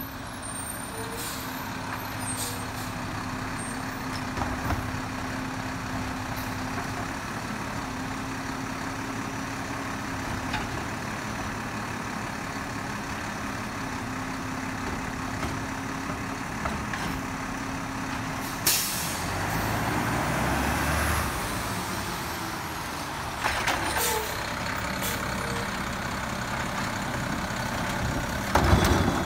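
Automated side-loader garbage truck's diesel engine running steadily as it creeps up the street, with sharp air-brake hisses about two-thirds through, again a few seconds later, and loudest near the end as it stops at the carts.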